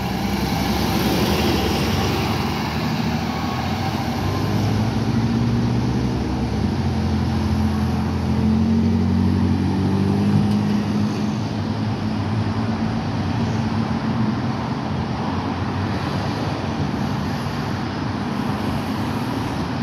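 Transit bus's Caterpillar C9 diesel engine pulling away and fading into steady city street traffic of passing cars.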